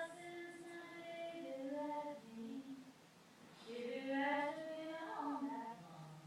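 A high voice singing the blues: a phrase of held notes stepping down in pitch, a pause of about a second, then a second phrase.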